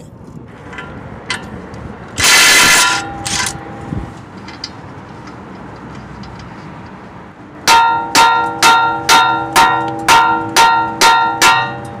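A brief burst from an impact wrench on the deep socket, loosening the outer tie rod end nut, then a quick run of about ten metal-on-metal hammer blows that ring out, struck on the steering knuckle to break the tie rod end's taper loose.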